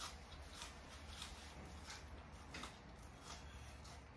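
Quiet eating sounds at a dinner table: a run of faint clicks, about one every two-thirds of a second, from forks on plates and chewing.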